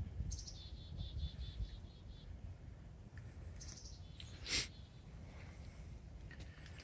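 A songbird singing a quick trill of high repeated notes that falls in pitch, heard once near the start and again more briefly about three and a half seconds in. A short sharp sound comes about four and a half seconds in, over a steady low rumble.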